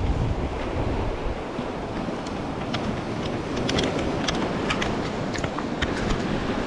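Sea waves washing against a rocky shore, with wind buffeting the microphone. A scatter of small, sharp clicks comes in the middle.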